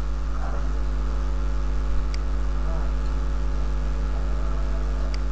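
Steady electrical mains hum with a hiss from the recording, and two short clicks about three seconds apart.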